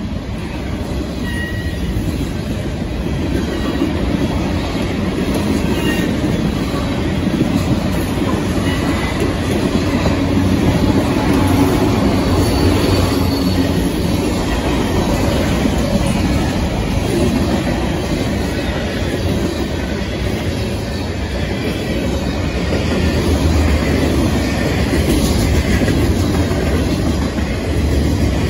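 Freight train of tank cars and boxcars passing close by: a steady rumble of steel wheels on the rails that grows louder over the first few seconds. At the start, the rear cars of a MARC bilevel commuter train are passing.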